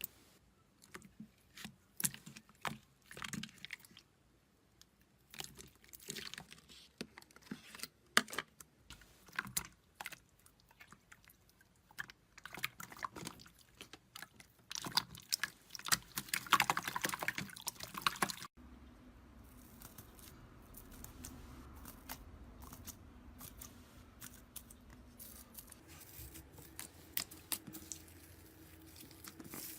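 Slime being squeezed and worked by hand, giving irregular wet clicks, crackles and small pops, thickest in a dense crackling run a little past halfway. After an abrupt change a low steady hum sits under sparser clicks.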